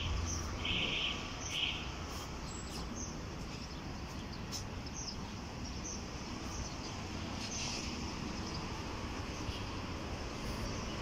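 Steady outdoor background noise, with a few short high chirps in the first two seconds.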